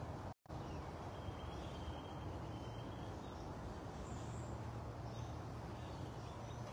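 Steady outdoor background noise with a low hum and faint chirping birds, cut off for a moment by a brief dropout about half a second in.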